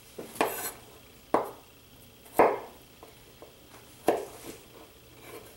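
Chef's knife chopping the tips off peeled garlic cloves on a wooden cutting board: four sharp knocks of the blade on the board at uneven intervals, with a few lighter taps between.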